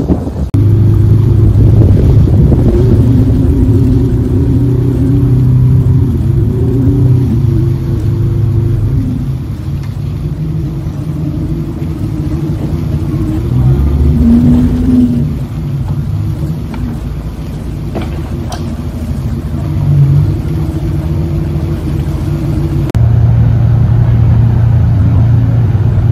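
Ferry engine droning, its pitch stepping up and down several times as the boat changes speed while coming in to dock. It turns louder again abruptly near the end.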